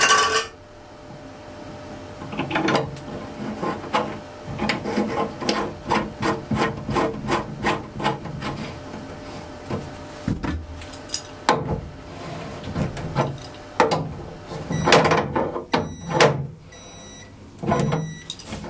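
Metal clicking and scraping from the union nut of a toilet tank's water-supply pipe being threaded onto the ball tap's inlet and tightened with a wrench, as the pipe is refitted over a new packing. The clicks come about two to three times a second through the first half, and there is louder clattering toward the end.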